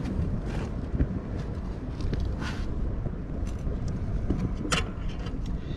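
Wind buffeting a phone's microphone as a steady low rumble, with a few short clicks about two and a half seconds in and again near the end.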